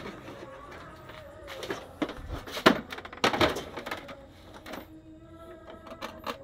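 Irregular knocks and thumps from scrap printers and their plastic casings being handled and moved, the loudest about two and a half seconds in. A faint steady hum sits underneath in the second half.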